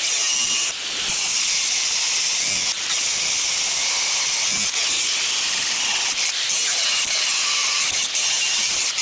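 Steady hissing of steel being cut on a worn snow plow bracket, with the cut pausing briefly about four times.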